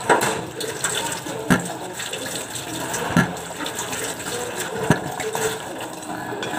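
Whole sweet potatoes set down one at a time on a table, giving a few short knocks about a second and a half apart, over a steady rushing noise.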